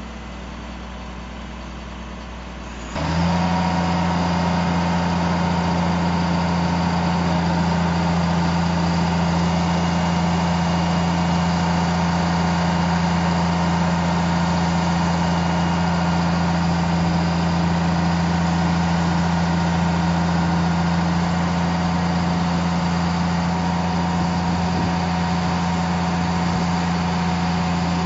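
Crane truck's engine running steadily, then stepping up suddenly to a louder, steadier drone with a higher whine about three seconds in, and holding there.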